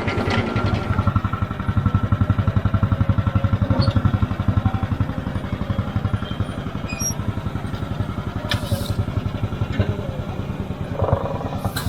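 Farm machine engine running steadily at constant speed, its firing pulses coming as a fast, even low throb.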